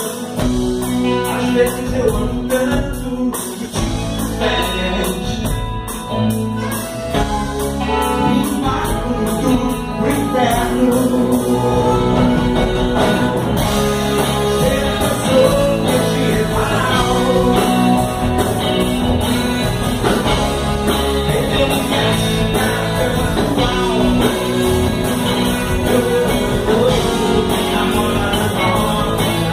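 Live rock band playing a blues number: electric guitars, bass guitar and drum kit, with a saxophone carrying the melody in the second half.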